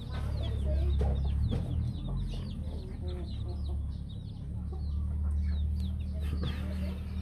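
A flock of young chicks peeping continuously, many short high chirps overlapping, over a steady low rumble.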